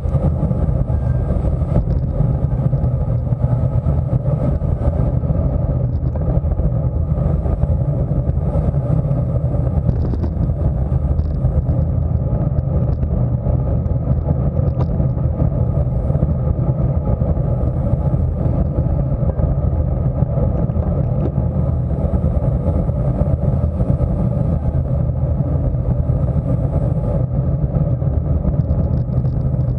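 Steady wind and road rumble on a bicycle-mounted camera's microphone while riding at about 22 mph.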